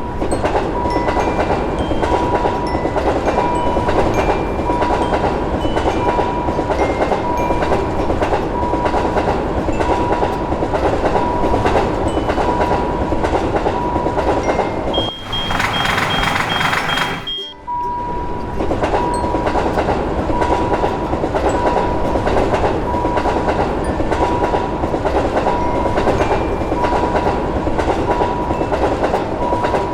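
A level crossing warning signal sounds a repeating beep at an even beat over the loud, continuous rumble of a train passing. About halfway through, the noise turns brighter for a couple of seconds with a high steady tone, then the rumble and beeping carry on.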